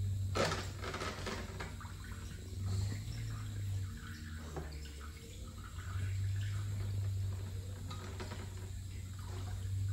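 Acid running from a drum pump through a hose into a plastic measuring cup, a steady liquid trickle, with a low hum underneath that fades out and comes back.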